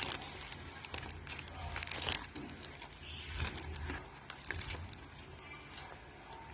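Packaging being handled and unwrapped, crinkling and rustling in quick crackles that are densest in the first two seconds, then quieter.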